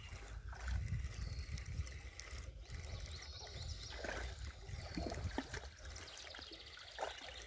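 Small stream's running water trickling, over a steady low rumble and a few faint clicks and splashy knocks.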